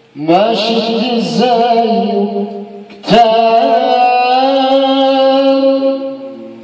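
A man singing an Arabic song into a handheld microphone: a wavering, ornamented phrase that slides up at the start, then a long held note from about three seconds in that fades near the end. A short click comes just as the held note begins.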